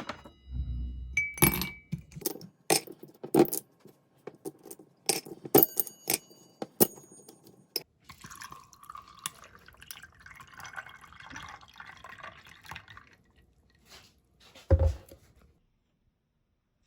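Glassware clinking, with several short ringing clinks, then liquid pouring for about five seconds, then one heavy thump near the end.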